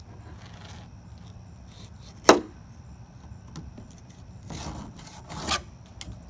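Fillet knife cutting along a small pompano's backbone on a cutting board, the blade scraping and rasping against bone and board. There is one sharp knock a little over two seconds in and two louder scrapes near the end.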